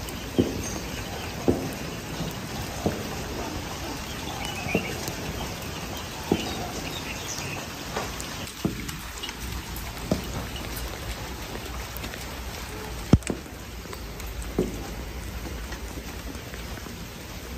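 Steady rain falling, with single heavier drops striking close by every second or two; one sharper, louder hit about thirteen seconds in.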